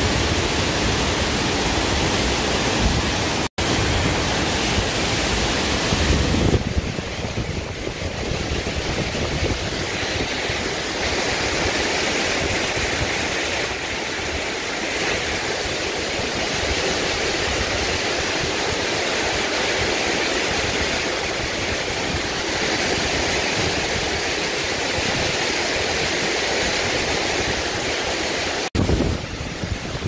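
A waterfall about 50 m high pouring into its plunge pool: a steady rush of falling water, with a deeper rumble in the first six seconds. The sound cuts out for an instant twice, a few seconds in and near the end.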